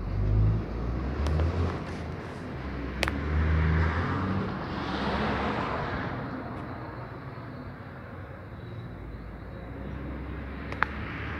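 Distant military aircraft of the Ecuadorian Air Force flying over: a rushing jet noise swells to a peak about five seconds in and then fades away. Wind rumbles on the microphone in the first seconds, and there are two sharp clicks, one about three seconds in and one near the end.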